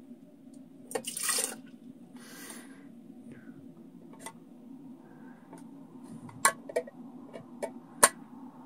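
A cupful of water poured out in two short splashes, followed by several sharp light clicks and knocks of a plastic cup and a hand-pump water filter being handled, the loudest near the end.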